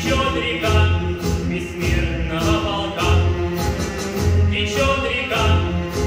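Choral song performed live to a backing track, with voices singing over a regular bass beat.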